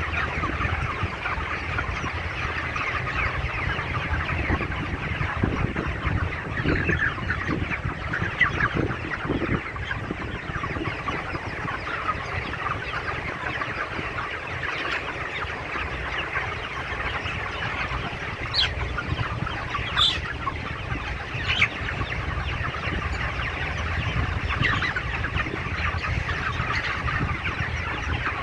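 A large flock of young broiler chickens clucking and chirping continuously in a dense chorus, over a steady low hum, with a few sharp clicks about two-thirds of the way through.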